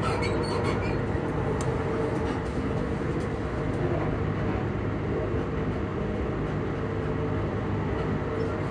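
Class 334 electric multiple unit's traction motors humming steadily as the train runs at a constant speed, with a steady tone over the low rumble of wheels on rail.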